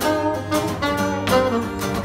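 Saxophone and acoustic guitar playing a live duet: the guitar strums chords in a steady rhythm while the saxophone holds long notes over it.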